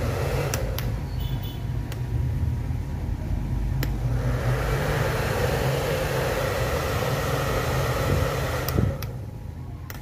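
Hair dryer running through a series test bulb as it is checked after a heating-element repair: its motor and fan hum steadily, the air noise swells about four seconds in and drops away near the end, with a few sharp clicks of the handle switch.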